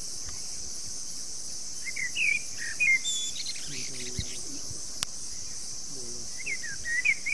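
Forest ambience: a steady high drone of insects, with birds giving short warbling chirps about two seconds in and again near the end.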